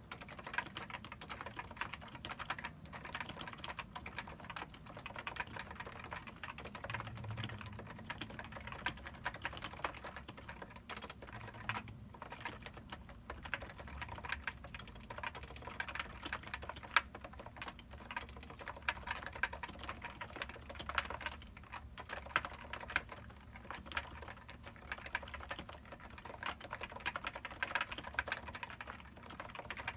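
Topre Type Heaven keyboard with 45g electrostatic capacitive switches and Hi-Pro PBT keycaps being typed on continuously: a fast, steady run of keystrokes with a few short pauses.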